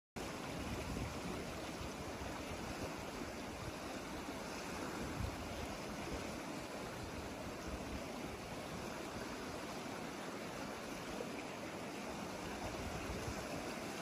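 River water flowing, a steady rushing noise.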